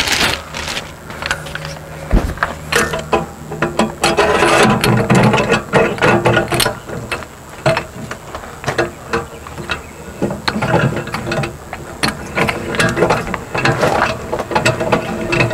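Newly fitted manual landing gear on a fifth-wheel camper being cranked by hand, its gearbox turning with a run of irregular metallic clicks and clunks as the crank handle engages the gear shaft.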